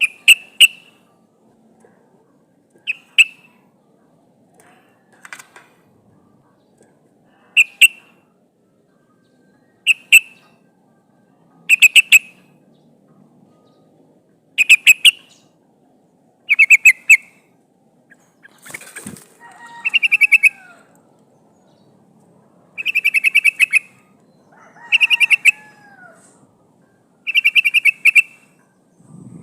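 Yellow-vented bulbul (trucukan) calling in short bursts of fast chattering notes, one burst every one to three seconds. Two longer phrases with a lower falling note come near the middle and toward the end. The uploader presents it as a female calling to males.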